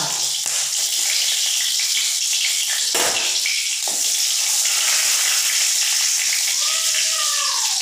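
Whole spices (cinnamon, cloves, dried red chilli and bay leaf) sizzling steadily as they fry in a hot karahi while being stirred with a spatula, with two sharp knocks about three and four seconds in.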